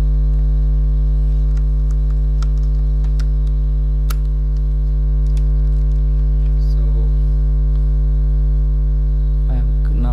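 Loud, steady electrical mains hum with a stack of evenly spaced overtones, picked up on the recording, with a few faint clicks over it.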